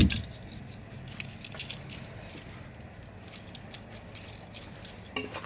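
A sharp knock, then scattered small clinks and rattles of broken pieces of a smashed clock skittering and settling.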